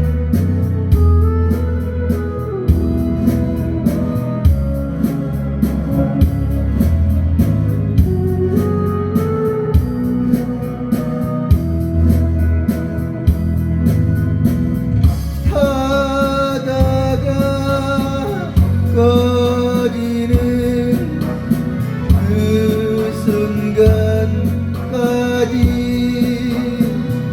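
Singing of a Korean pop-folk song over a backing track of bass, guitar and a steady beat; the first half is an instrumental passage, and the voice comes in about halfway, holding its notes with vibrato.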